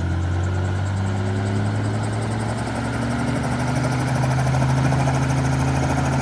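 Helicopter engine and rotor sound effect spinning up, a steady drone slowly rising in pitch with a fast, even rotor chop.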